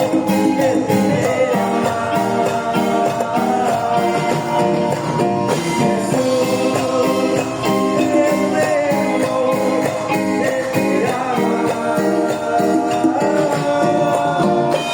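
Live band playing an upbeat Latin Christian song, with held melody notes over a steady percussion beat.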